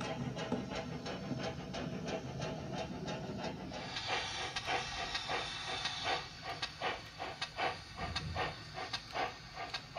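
Steam chuffing from a model London Transport pannier tank's DCC sound decoder (ESU LokSound V4 Micro with the Wheeltappers LT pannier sound file) through its small onboard speaker. Quick, even chuffs run over a low rumble. About four seconds in a burst of steam hiss comes, after which the chuffs come slower and more distinct.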